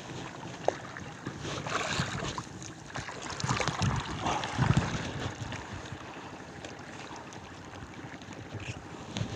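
Shallow seawater lapping and sloshing at a rocky shore, with wind on the microphone and a few scattered knocks.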